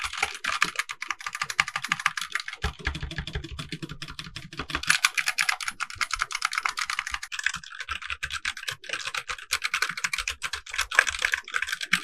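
Rapid typing on a ZIFRIEND ZA94 mechanical keyboard with Outemu red linear switches and PBT keycaps: a dense, continuous clatter of keystrokes as a sound test of the switches, with a brief pause about seven and a half seconds in.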